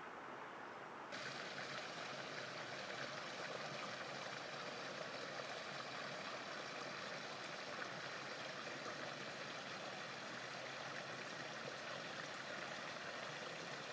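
Steady rush of running water, which jumps louder and brighter about a second in and then holds even.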